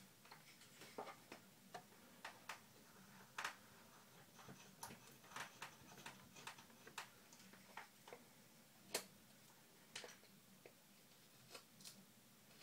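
Faint, irregular clicks and ticks of a Victorinox Farmer pocketknife cutting a notch into a stick of soft wood.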